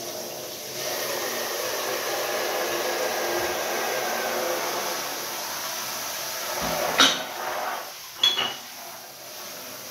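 Water spraying from a handheld shower head into glass beer bottles in a bathtub, a steady hiss that fades after a few seconds. Near the end come two sharp clinks of the glass bottles knocking together.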